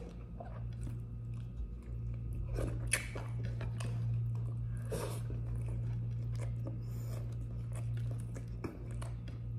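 A person chewing and biting crunchy scorched rice crust (dukot), with a few short crisp crunches scattered through, over a steady low hum.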